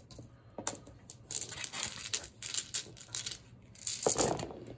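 Dice rattling and clattering as a handful is rolled and gathered on the gaming table: a run of small sharp clicks from about a second in, then a louder clatter near the end.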